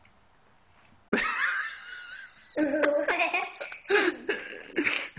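Quiet for about a second, then a person bursts out laughing: a high, wavering squeal followed by repeated short bursts of laughter.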